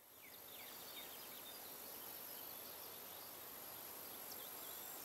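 Faint outdoor ambience with steady hiss and small birds chirping now and then in the background.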